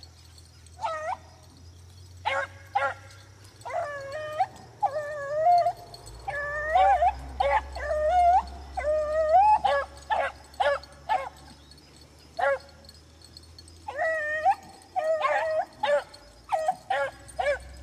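Beagles baying on a rabbit's trail: a string of drawn-out, pitch-bending bawls mixed with short chop barks, coming irregularly as the hounds run the track.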